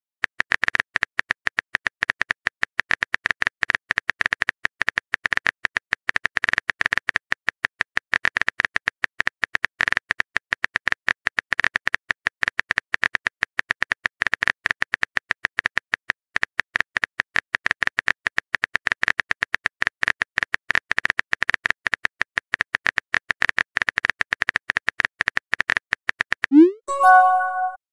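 Rapid clicking of a chat app's keyboard-typing sound effect as a message is typed out letter by letter. Near the end comes a short rising swoosh and a chime: the message-sent sound.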